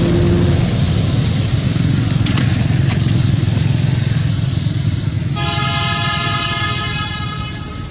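Steady low rumble of a passing motor vehicle, with a vehicle horn sounding one long, steady note from about five seconds in to the end.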